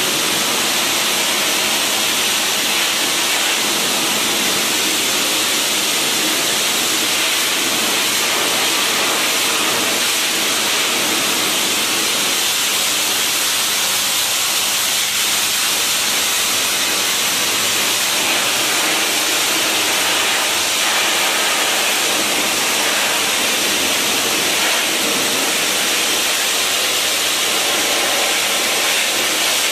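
High-pressure water jetter spraying from a lance into a metal channel drain, a steady hiss of water blasting grease and grime off the channel floor.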